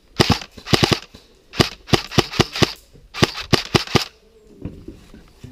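Airsoft rifle firing several short bursts of rapid shots, each shot a sharp crack, in about four strings spread over the first four seconds.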